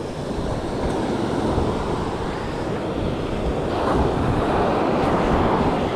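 Surf breaking and washing up the sand, with wind buffeting the microphone in low rumbles; the wash swells louder about four seconds in.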